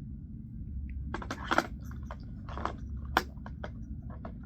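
Fishing gear being handled: a run of sharp clicks and light rattling knocks, the loudest about one and a half and three seconds in.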